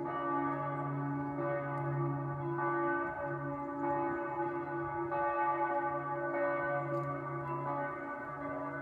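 Several church bells ringing together in a full peal, their strikes overlapping into a continuous ringing of several pitches, renewed with a fresh stroke about every second.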